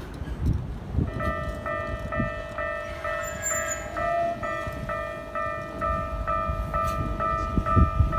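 Japanese level crossing warning bell starting to ring about a second in, an electronic clang repeating evenly at about two strikes a second, over low rumbling.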